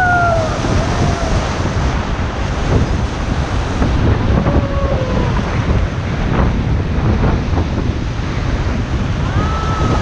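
Whitewater rapids rushing and churning around an inflatable raft, with wind buffeting the microphone in heavy low rumbles.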